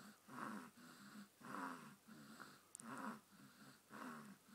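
A sleeping baby snoring faintly, one snore on each breath, a little more than a second apart.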